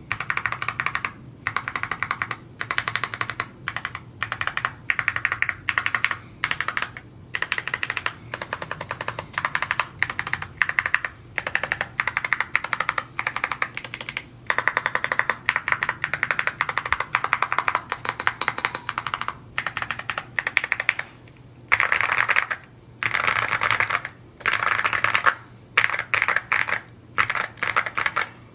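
Typing on an Evo80 custom mechanical keyboard: fast runs of key clicks in short bursts, broken by brief pauses between words.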